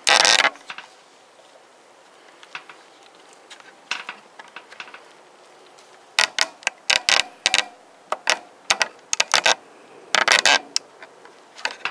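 Bursts of sharp mechanical clicking and rattling: one loud burst at the start, then clusters of clicks from about six seconds in until near the end.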